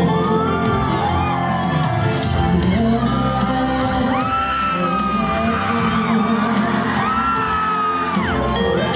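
Live concert performance: a singer holds long, gliding notes over a full band, with the crowd whooping.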